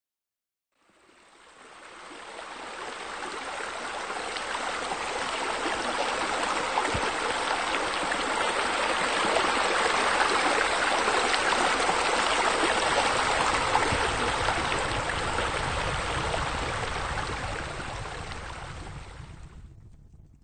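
Steady rush of running water from a rock waterfall feature. It fades in about a second in, swells, and fades out near the end.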